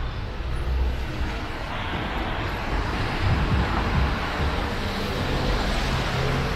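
Street traffic: a motor vehicle passes close by, its noise swelling through the middle and easing off at the end.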